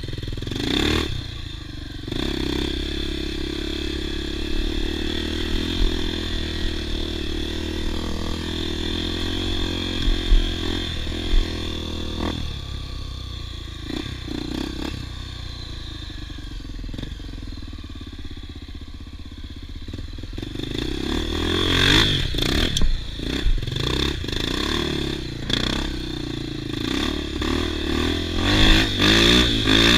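Off-road motorcycle engine running with the throttle constantly changing, revving up harder about two-thirds of the way through and again near the end, with a few sharp knocks along the way.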